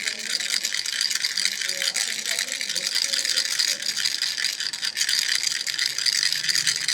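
Giraffe-shaped baby rattle being shaken continuously: a dense, fast rattling with no pauses.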